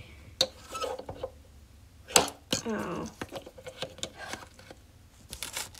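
Scattered clicks and taps of plastic toy horse figures being handled and set down on a hard surface, the sharpest knock about two seconds in. A short voice sound follows about half a second later.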